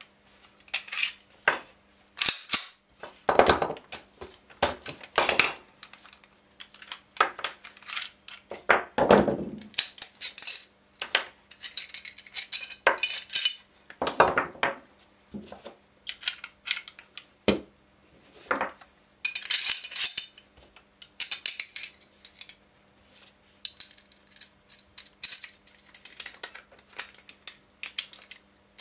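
Metal clicks, clinks and scraping of a Tokarev TT-33 pistol being field-stripped by hand: the slide, recoil spring, barrel bushing and small steel parts are worked loose and set down on the table, one sharp knock after another, with stretches of scraping in between.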